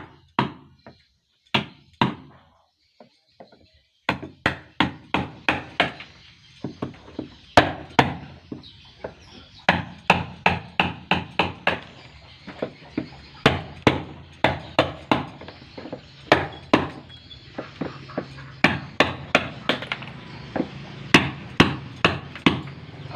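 Hand tool striking wood again and again while a wooden boat is built. A few spaced blows come first, then from about four seconds in a steady run of about two to three blows a second.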